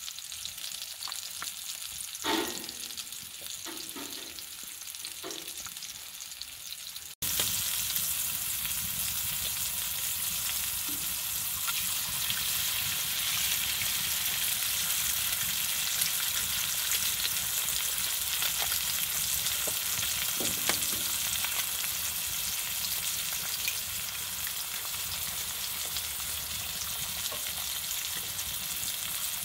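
Sausage patties and eggs frying in a pan, with a steady, even sizzle that starts abruptly about seven seconds in. Before that the sound is quieter, with a few clicks and a single knock about two seconds in.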